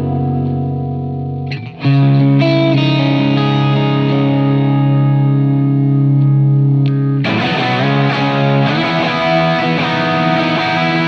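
Electric guitar played through a Line 6 Helix modelling a 1966 Vox AC30, set right on the edge of breakup and with delay on. One chord rings out, a new chord is struck about a second and a half in and left to ring, then a busier passage of notes starts about seven seconds in.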